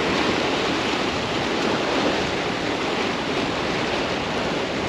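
Surf breaking and washing over the rocks of a jetty: a steady rush of water with no sudden events.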